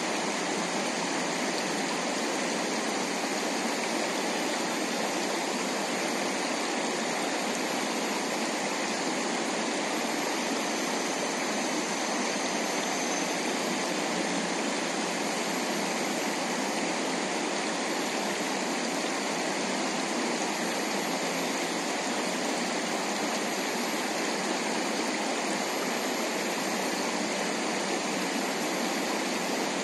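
Water running over and around stones in a shallow rocky river, a steady, even rush that does not change.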